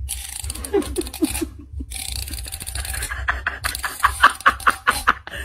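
A cat licking and smacking its mouth at a green stick held to it: a quick run of wet clicks, about five a second, in the second half, over a low steady hum.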